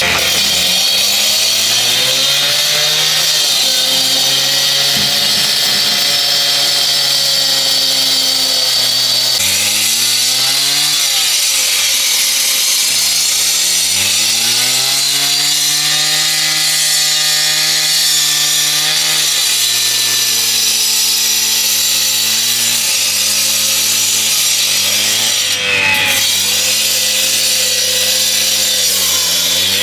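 Husqvarna K770 two-stroke power cutter cutting concrete with a diamond blade: a loud, steady grinding hiss over the engine, whose pitch sags under load and climbs back again several times. The cut briefly eases off near the end.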